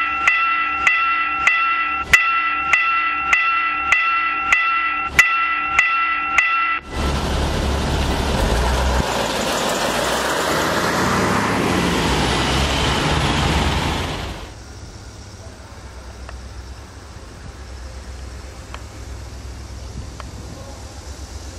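Level-crossing warning bell ringing in a steady beat of about two strikes a second, cut off about seven seconds in. A loud rushing noise follows for about seven seconds, then drops to a faint low hum.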